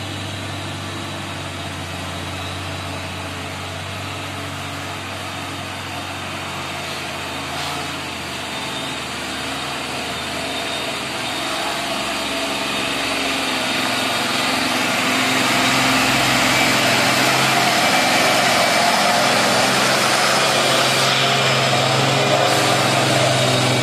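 Mitsubishi cargo truck's diesel engine running as the truck drives slowly along a muddy road, growing louder as it comes close and passes.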